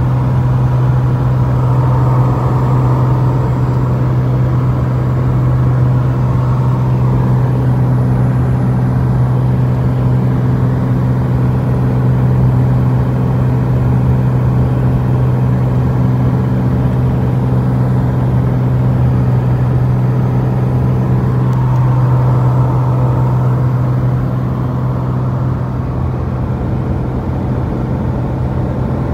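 Socata TB20's six-cylinder Lycoming IO-540 piston engine and propeller droning steadily in cruise flight, heard inside the cabin. It grows a little quieter about three-quarters of the way through.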